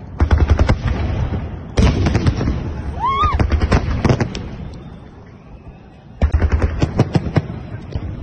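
Fireworks shells bursting at close range, low over the ground instead of high in the sky: rapid strings of loud bangs and crackles in three clusters, the middle one tailing off before the last starts about six seconds in.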